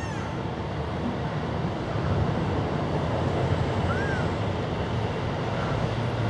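A kitten's faint, thin, high mews, calling for its mother, one right at the start and another about four seconds in, over a steady low background rumble.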